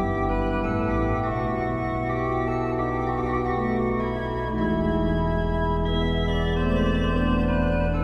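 Pipe organ playing a slow Baroque chorale prelude: sustained chords over a held bass, with the bass and inner voices moving to new notes about halfway through.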